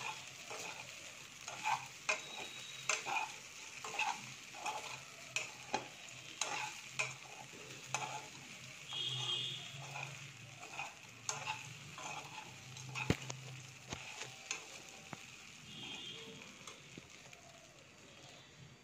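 A metal spoon stirring and scraping idli pieces through masala in a metal kadai, with repeated clinks and scrapes against the pan over a light frying sizzle. The stirring thins out and fades toward the end.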